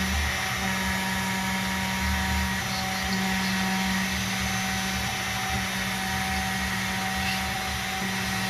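CNC milling machine spindle running steadily while milling metal: a constant hum with a high whine over the noise of the cut.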